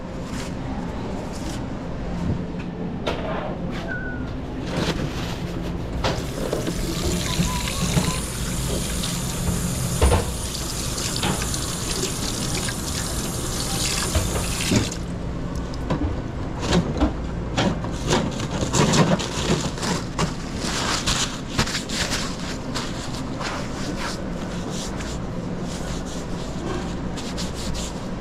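Water running from a tap for about nine seconds, starting and stopping abruptly, followed by a run of sharp clicks and knocks of kitchen handling, over a steady low hum.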